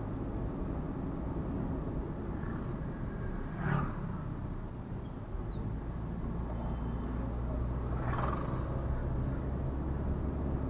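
Steady low rumble of engine and tyre noise from a vehicle driving along a road. Two brief swells of noise come about a third of the way in and again near the end, and a short high whistle-like tone sounds just before the middle.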